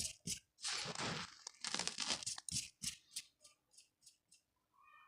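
Crunchy chalk crumbles being crushed: a run of dry crunching and crackling that thins out after about three seconds to a few faint crackles. A brief faint tone sounds at the very end.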